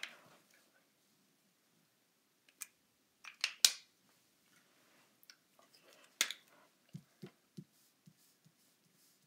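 A few sharp clicks of felt-tip markers being handled, the loudest about three and a half seconds in, then several soft taps of a marker tip dotting onto paper on a table.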